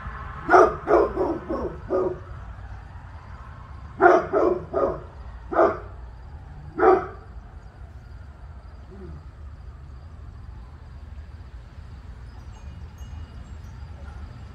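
Dog barking: a quick run of about five barks, then after a short pause three more and two single barks, about ten in all over the first seven seconds.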